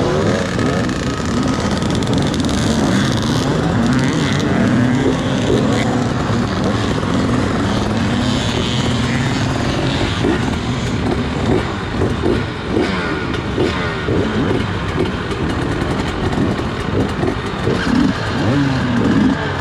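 FPV quadcopter motors and propellers whining, the pitch rising and falling quickly with the throttle.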